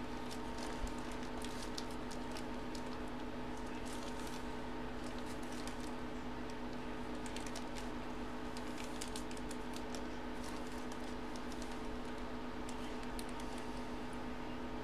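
Faint scattered light clicks and rustles of small hand handling over a steady low electrical hum.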